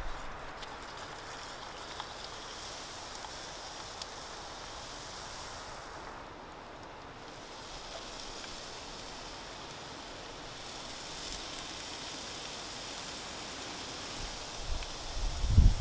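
Steady soft hiss with a few faint clicks around a charcoal grill as wooden chicken skewers are laid on the iron grate. Near the end, wind starts to rumble on the microphone.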